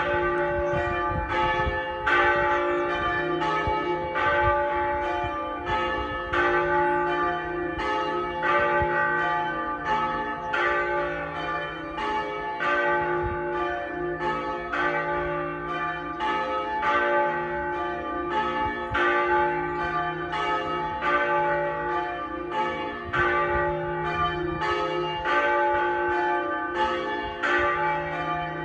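Pershore Abbey's tower bells ringing, only a reduced set of fewer than half the bells in use. The strokes fall in a steady, even sequence, each tone ringing on under the next.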